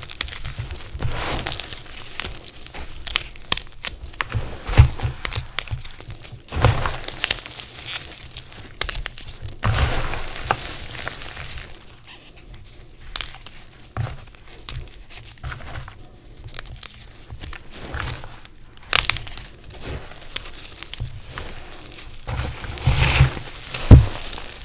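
Hands crushing and crumbling handfuls of reformed gym chalk: a dense, irregular crackling crunch, with louder crunches about five seconds in and near the end.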